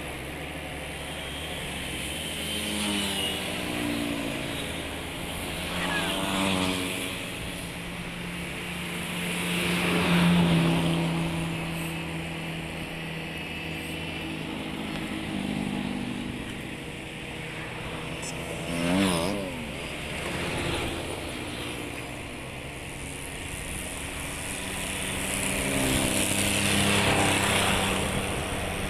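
Diesel farm tractor engine running and revving up and down under load as its front loader pushes into a pile of bricks, the engine note swelling several times, loudest about ten seconds in and again near the end. A brief wavering whine comes about nineteen seconds in.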